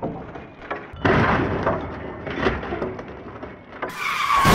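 Volvo crash-test car landing upside down on pavement in a rollover test, with a heavy impact about a second in and more knocks of metal crunching and scraping over the next two seconds. Near the end the sound switches to a falling squeal over a low rumble.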